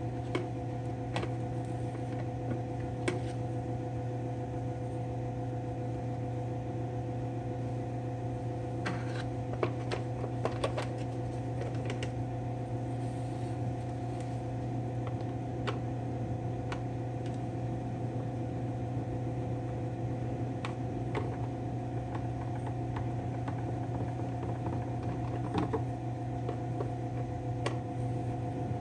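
A steady hum runs throughout, with scattered light clicks and taps as the chainsaw's top cover and tools are handled and the cover is fitted back on.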